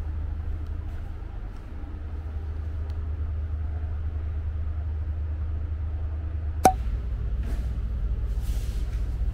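Steady low drone of a passenger ferry's engines. A single sharp metallic clank rings out about two-thirds of the way through.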